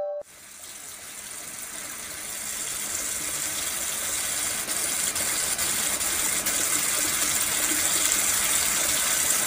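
Kitchen tap running a steady stream of water onto leafy greens in a plastic colander in a metal sink. It grows louder over the first few seconds, then holds steady.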